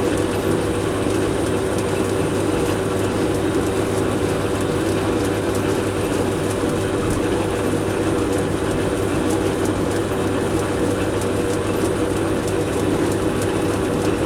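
Metal lathe running steadily with the tool taking a heavy 60 thou first cut on a metal bar, a constant machine hum under the noise of cutting.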